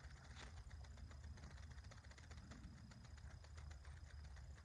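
Faint, rapid, irregular clicking and scuffling from two dogs play-wrestling on artificial turf, with paws and jaws working, over a low steady rumble.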